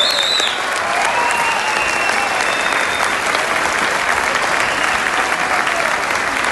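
Large theatre audience applauding, many hands clapping steadily, with a few long high tones sounding over the clapping.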